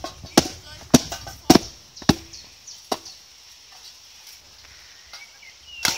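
Repeated sharp hits on a small black metal grill as it is smashed, about one every half second for the first few seconds, then one loud hit near the end.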